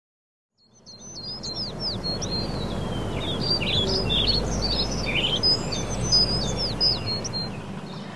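Small birds chirping and twittering over a steady background rush, fading in from silence about a second in.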